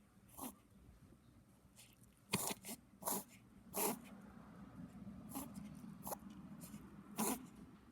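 Yorkie-Maltese (morkie) puppy reverse sneezing: a string of short, noisy snorting gasps at uneven intervals, roughly one a second. A reverse sneeze is a spasm in the throat or an irritated soft palate pulling air in through the nose fast.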